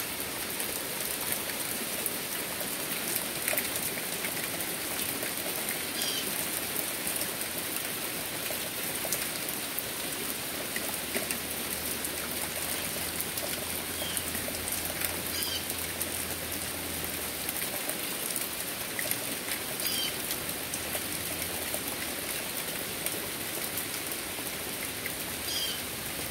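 Heavy rain falling steadily on a wooden deck and the surrounding trees, an even, unbroken hiss of drops.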